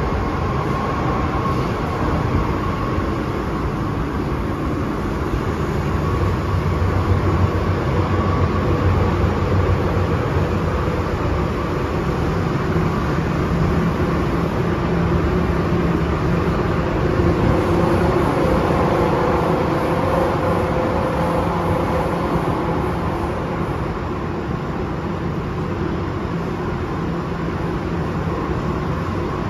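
MTR M-train motor car running, heard inside the cabin: a steady low rumble of wheels on track with a whine from the traction motors that drifts up and down in pitch. The whine is the unusual howl this car has had since its overhaul.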